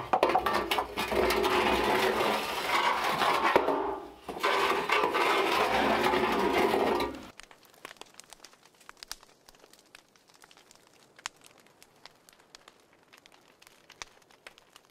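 Wood fire burning in an earthen clay oven: a loud, dense crackle for about seven seconds that cuts off suddenly, leaving faint, scattered pops and crackles.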